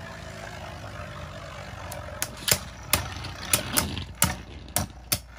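Two Beyblade Burst spinning tops, King Helios Zone 1B and its opponent, whirring steadily on the plastic stadium floor; from about two seconds in, a string of sharp irregular clacks as the tops strike each other.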